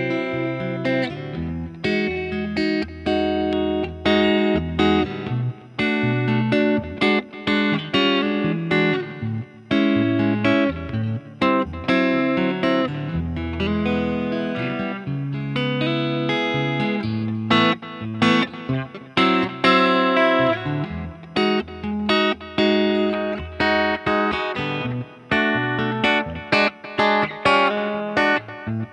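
Electric guitar, a home-built Telecaster Thinline, played clean through a Fender Tweed Deluxe 5E3 kit amp and a Laney Lionheart L5. A Boss Blues Driver boost and a light Boss DD200 delay are on. It plays a continuous run of picked single notes and ringing chords.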